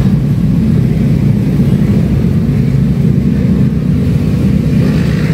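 Steady low rumble of a vehicle driving along, with no break or change in level.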